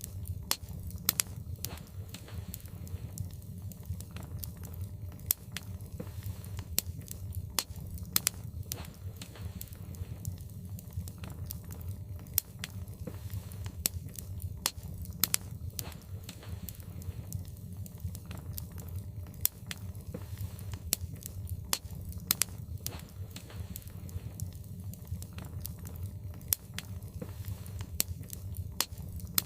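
Wood fire in a fireplace crackling, with irregular sharp pops of the burning logs scattered throughout over a steady low rumble.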